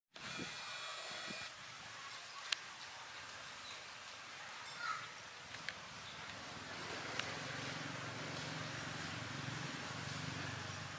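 Outdoor ambience with birds calling in the distance and a few sharp clicks; a low steady hum comes in about halfway through.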